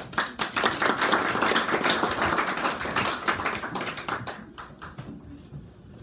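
Small audience applauding, the clapping thinning out and fading away over the last second or so.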